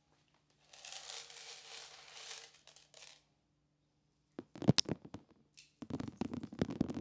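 Dried corn kernels scattered out with a rustling hiss lasting a couple of seconds, then chickens pecking at the kernels in two quick clusters of sharp taps and clicks.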